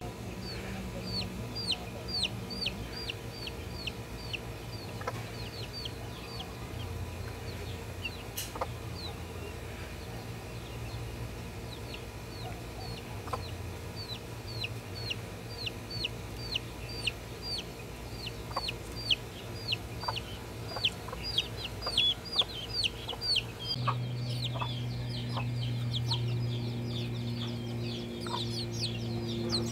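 Domestic chicks peeping continually: short high chirps, each falling in pitch, a couple a second, coming faster near the end.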